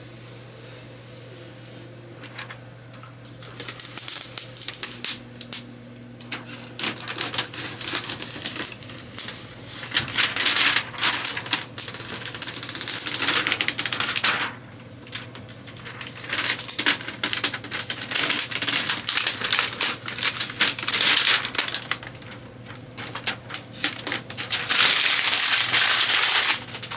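Protective plastic film and stickers being peeled off a new computer case: irregular crackling and clicking, with longer ripping stretches as sheets come away, two of them about ten seconds in and again near the end.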